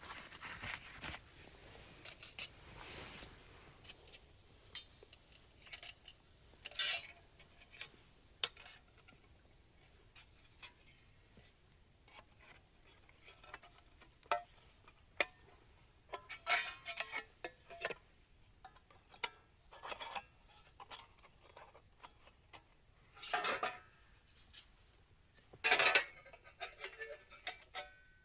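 Camp cookware and utensils being handled: scattered light clinks and scrapes, with a few louder scrapes.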